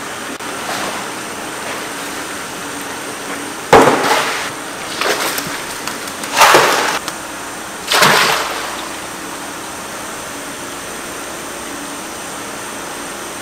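Water splashing hard four times as a hand net is plunged into a fish tank and lifted out streaming, over a steady rush of water running into the tank from an inflow pipe.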